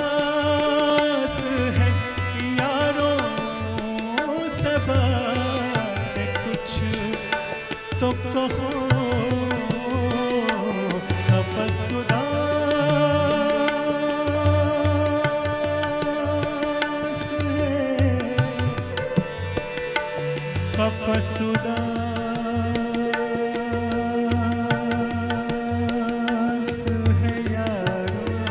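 Ghazal sung by a male voice in long, gliding held notes over harmonium, with tabla keeping a steady rhythmic cycle underneath.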